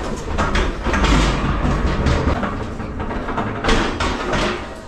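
Electric pallet jack rolling across a truck trailer's wooden floor with a loaded pallet on its forks: a continuous low rumble and rattle with repeated knocks.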